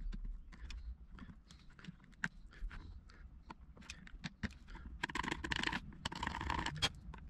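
A small hand chisel paring and scraping the soft plastic end of a grey electrical enclosure: irregular light clicks and scrapes, with a denser run of scraping about five seconds in.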